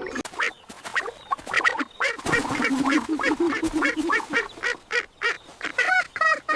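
Duck quacking in a rapid run of short quacks, several a second.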